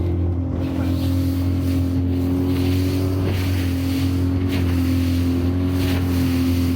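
Suzuki DF20A four-stroke outboard motor running steadily under way, with water rushing past and a splash of the hull on the water about once a second.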